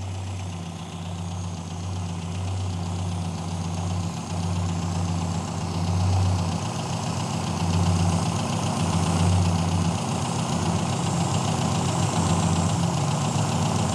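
Austin A-series four-cylinder engine idling steadily on its twin carburettors, a low even hum that slowly grows louder.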